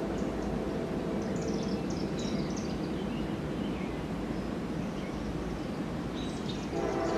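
Freight locomotive horn fading out after a blast, then a steady rumble with scattered bird chirps; the horn sounds again loudly near the end.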